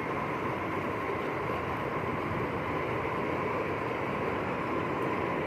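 Steady rush of river water pouring over falls.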